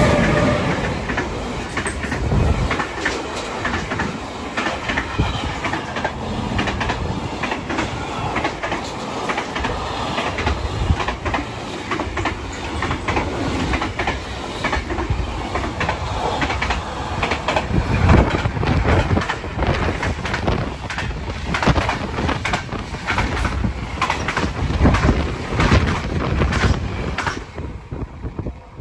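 Intermodal freight train rolling past at close range, its wagons' wheels clacking over the rail joints in a long run of rapid knocks. The locomotive passes right at the start, and the sound falls away near the end as the last wagon draws off.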